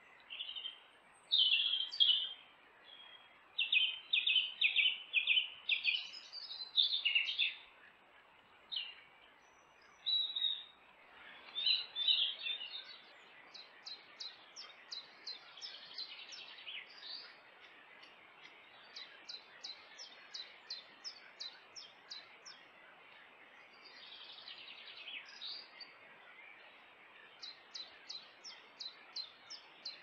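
Woodland songbirds singing: loud whistled song phrases for the first twelve seconds or so, then fainter runs of quick repeated notes, about five a second, over a faint steady hiss.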